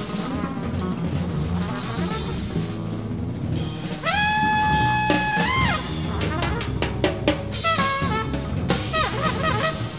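Improvised jazz played by a trumpet, bass and drum-kit trio. The trumpet plays short phrases over bass and drums, then about four seconds in holds one long note for under two seconds that bends up and falls away; a cluster of sharp drum and cymbal strokes comes around seven to eight seconds in.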